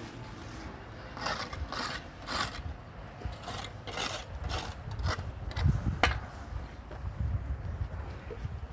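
Hand-tool work on a building site: irregular scrapes and knocks, about eight in all, over a low rumble, with a sharp knock about six seconds in.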